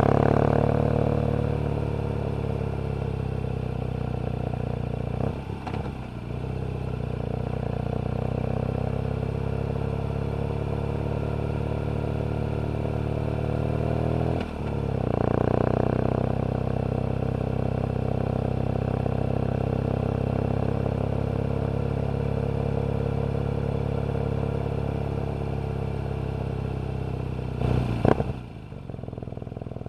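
BMW R nineT Urban G/S's boxer twin engine running under way, heard from the rider's seat. The note breaks briefly twice, about five and fourteen seconds in, as gears are changed, then holds steady; near the end a short burst is followed by quieter, lower running.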